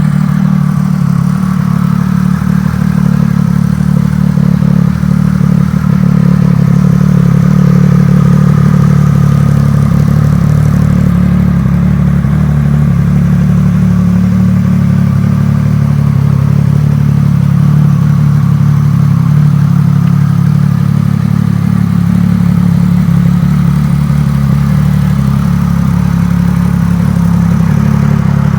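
Triumph Speed Triple 1200 RS inline-three engine running steadily through an aftermarket MV Agusta exhaust, a deep, even exhaust note with no revving.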